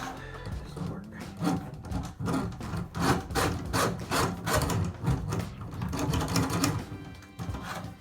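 Drain-cleaning machine running, its motor giving a steady low hum while the cable knocks and scrapes irregularly, two or three times a second, as it works through a clogged drain line.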